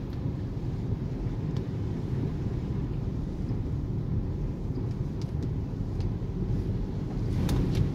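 Car driving through standing floodwater, heard from inside the cabin: a steady low rumble, with a few short clicks and a brief louder rush near the end.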